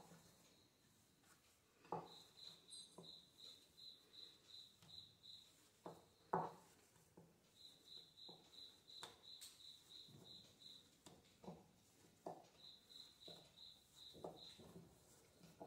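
Faint soft pats and squishes of hands kneading a stiff chakli dough of mixed grain and lentil flour in a glass bowl, the strongest knock about six seconds in. Behind them a cricket chirps in repeated trains of rapid, even pulses, about five a second.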